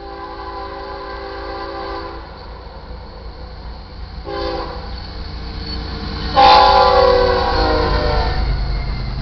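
Diesel locomotive air horn on NS 8052, a GE ES44AC, blowing the grade-crossing signal. It gives a long blast, a short blast about four seconds in, then a louder long blast about six seconds in, with the low rumble of the approaching train building underneath.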